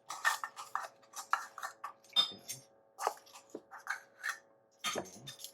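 Measuring teaspoon scooping baking powder and clinking against its container and the bowl: a series of short clicks and scrapes, a few ringing briefly.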